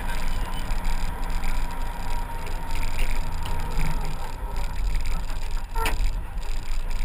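Vehicle engine running steadily as a low rumble, with a single sharp click about six seconds in.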